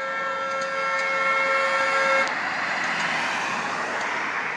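Fireworks: a steady, shrill multi-tone whistle that cuts off about two seconds in, then a sustained spraying hiss with a few scattered crackles.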